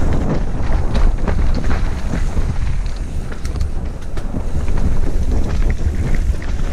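Wind buffeting a helmet-mounted camera microphone during a fast mountain bike descent on a dirt forest trail, with the tyres rumbling over the ground and frequent small knocks and rattles from the bike.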